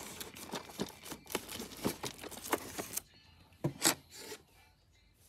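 Hands handling a plastic-wrapped tool set in its case: a quick run of crinkling, rubbing and small clicks for about three seconds, then two sharp knocks.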